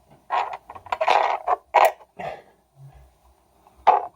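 Hands working on a washing machine's damper shock absorbers: irregular scraping and rustling, loudest about a second in, a dull thud, then a sharp click near the end.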